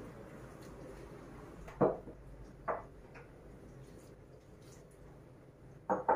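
A few short knocks of kitchenware being handled over a low steady background noise: one about two seconds in, a softer one a second later, and two quick knocks near the end.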